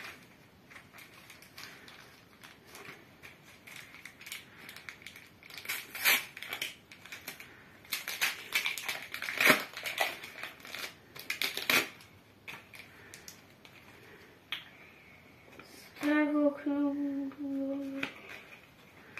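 Foil wrapper of a Panini trading-card packet crinkling and tearing as it is ripped open, loudest in the middle, then cards rustling as they are leafed through. Near the end a child's voice holds a short note.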